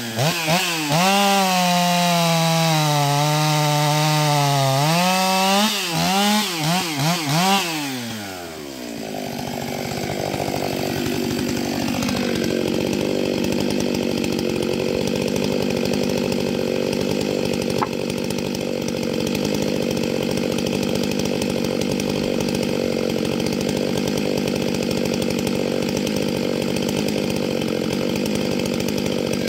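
Stihl MS 661 C two-stroke chainsaw cutting beech logs at full throttle, its pitch wavering under load, with a few brief throttle drops around six to eight seconds in. The engine then settles to a steady idle.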